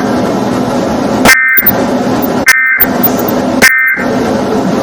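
Emergency Alert System end-of-message data signal: three short, shrill warbling digital tone bursts about a second apart, over loud, harsh, distorted noise.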